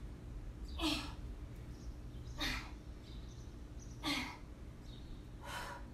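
A woman breathing out hard with each push-up, four short forceful exhales about a second and a half apart, over a faint low room rumble.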